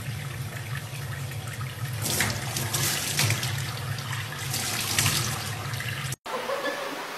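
Water running from a faucet into a stainless steel sink, splashing over a young chimpanzee's hands held under the stream. It cuts off abruptly about six seconds in.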